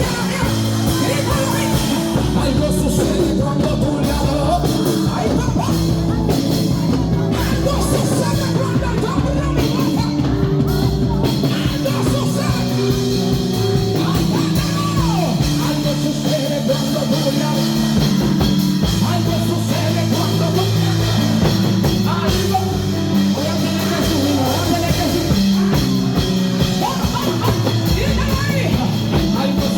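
Live worship band playing with held chords, and a voice singing over the music.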